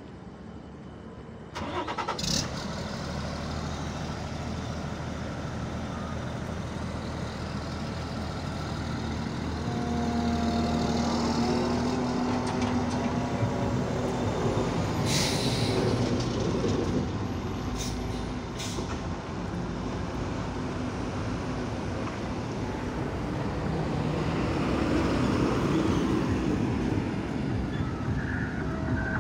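Wirtgen W 100 compact cold milling machine's diesel engine comes up to working speed suddenly about two seconds in, then runs steadily as the machine works, swelling louder twice. A few short sharp noises stand out near the middle.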